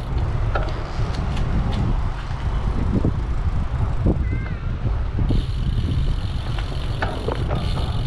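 Wind rushing over the microphone of a moving bicycle, a steady low rumble. A few faint clicks, and a steady high hiss joins about five seconds in.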